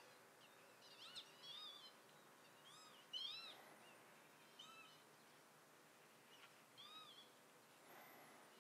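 Faint calls of small wild birds: several short clusters of quick, arched chirps spread through, over a soft steady hiss.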